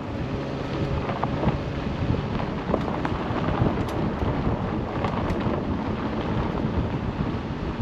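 Car driving on a rough dirt road: a steady low rumble of tyres and body, with scattered knocks and rattles.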